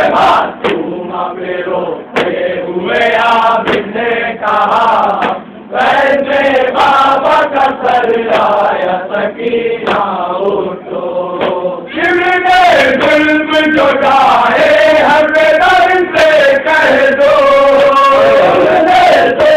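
Men chanting a nauha, a Shia lament, a lead reciter with a group chorus. About twelve seconds in the chorus grows louder and fuller, and sharp slaps of chest-beating (matam) come in over it.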